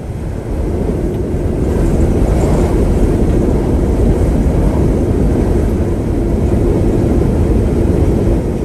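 Steady rumble of a vehicle on the move, engine and road noise.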